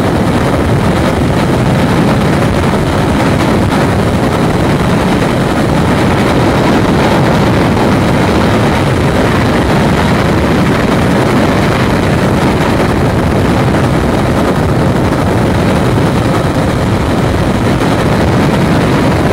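Steady rush of freefall wind over a helmet camera's microphone during a skydive, loud and unbroken.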